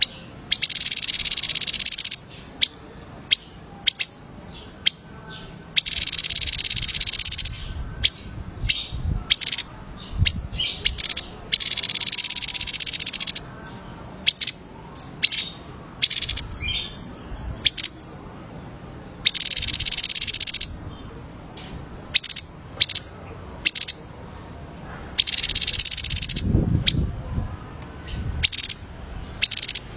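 Recorded songbird singing: bursts of rapid, high trills about a second and a half long, coming every five or six seconds, with short sharp chirps between them and a fast, high ticking note running underneath.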